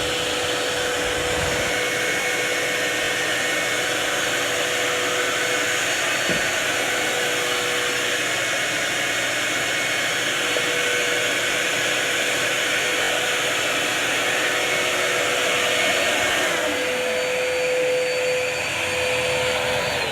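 Vacuum cleaner motor running steadily at full power: a loud rush of air with a steady whine over it.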